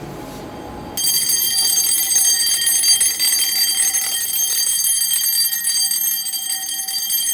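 Fire alarm sounding during a manual test. It starts suddenly about a second in and then rings steadily and shrilly, high-pitched, without a break.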